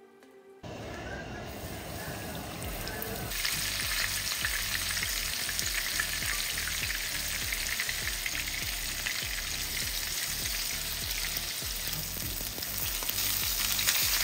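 Flour-battered butterfish pieces shallow-frying in hot oil, a dense crackling sizzle. It starts suddenly under a second in and grows louder about three seconds in.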